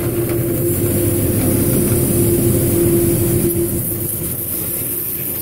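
Concrete mixer truck's engine running, with a steady hum that fades out about two-thirds of the way through, mixed with the hiss of a hose spray nozzle washing concrete off the drum's fins.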